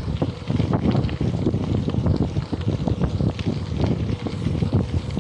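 Wind buffeting the microphone over a steady low rumble and many small rattling knocks, as of a gravel bike rolling over a rough track.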